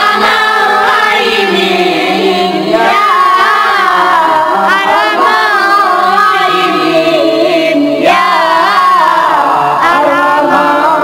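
Boys singing an Islamic devotional song (sholawat to the Prophet) into handheld microphones, the melody bending and wavering with ornaments.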